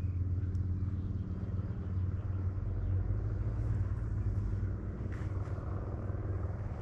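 An engine running steadily, a low, even hum that keeps one pitch throughout.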